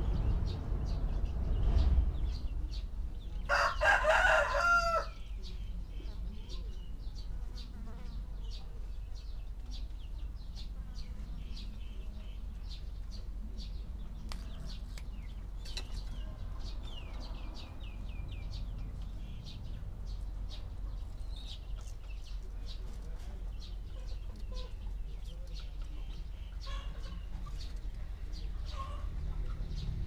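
A rooster crows once, about three and a half seconds in, the loudest sound here. Faint high ticks and a low rustle continue underneath.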